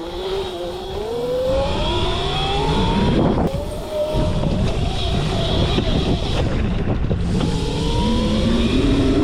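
A modified Razor MX650 electric dirt bike's 11,000-watt brushless motor whining as the bike accelerates. The whine rises steadily in pitch over the first three seconds, drops back, then climbs again near the end, over a steady low rumble.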